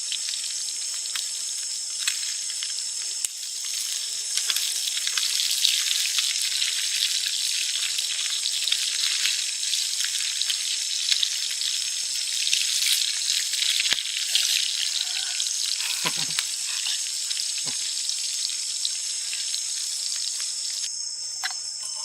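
Food sizzling and crackling as it fries over a campfire, with a steady high insect chorus of crickets underneath.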